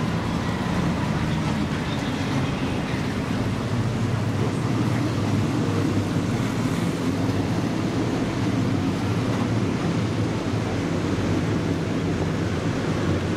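Powerboat engines running steadily in a low, even hum, mixed with rushing water and wind.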